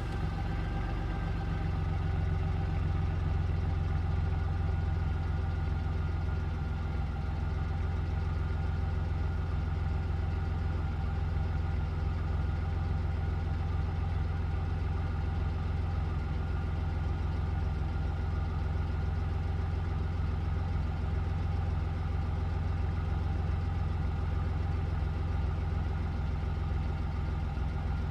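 Car engine idling steadily, an even low hum with no revving.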